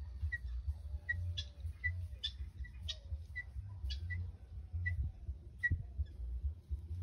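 Helmeted guineafowl calling: a run of short, harsh, clipped calls about twice a second, over a steady low rumble.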